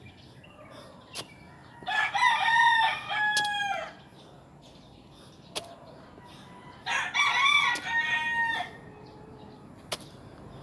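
A rooster crowing twice, each crow about two seconds long and ending in a held note, a few seconds apart, with a few sharp clicks in between.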